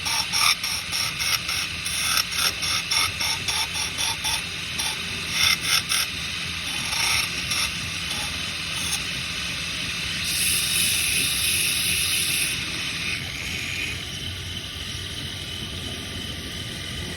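Woodworking work: a fast run of short mechanical clicks or scraping strokes for about six seconds, then a brief high hiss about ten seconds in, followed by a steadier low background.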